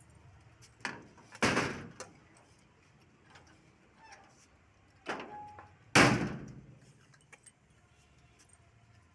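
Two pairs of loud bangs, each with a short ringing tail. The first pair comes about a second in, the second about five seconds in, and the last bang is the loudest.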